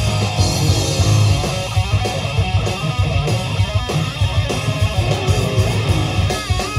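Live rock band playing: distorted electric guitar, bass guitar and drums, with a wavering high note near the end.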